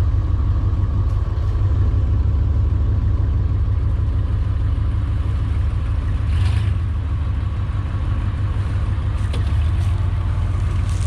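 Vehicle engine running steadily with a heavy low rumble, with a brief hiss about six and a half seconds in.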